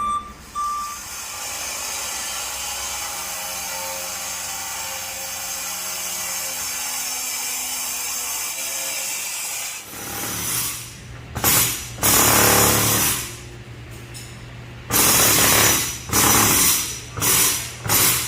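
A truck's reversing beeps stop just after the start, followed by a steady background hum. From about ten seconds in, a power tool runs in five or six loud bursts of a second or two each, breaking out a shop wall.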